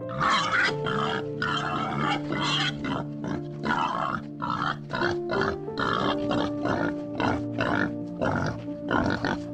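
Young boars grunting in a quick string of short calls, two or three a second, over background music with steady held notes.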